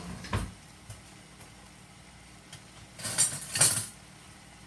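Kitchenware clinking and clattering: a single clink just after the start, then a louder run of clinks and knocks about three seconds in, over a faint steady background hiss.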